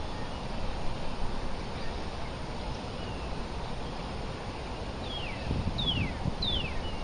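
A bird gives three quick down-slurred whistles near the end, over a steady low outdoor background rush.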